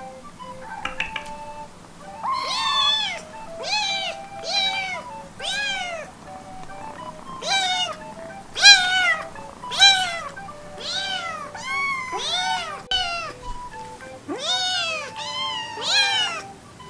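Weaning-age ginger kittens meowing loudly and over and over, about fifteen short meows that each rise and fall in pitch, over faint background music.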